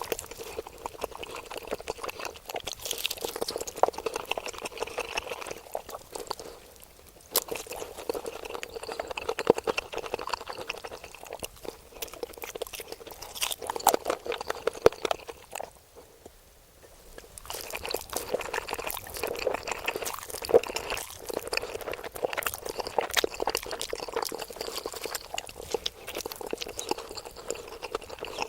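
Close-miked eating sounds: wet slurping and chewing of saucy instant noodles, a dense run of small smacks and clicks, with two brief quieter stretches about six and sixteen seconds in.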